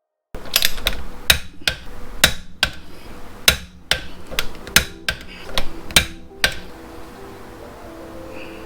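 A dozen or so sharp metallic clicks and knocks, irregularly spaced one or two a second, from hand tools working the lug nuts on a car wheel. Faint music comes in near the end.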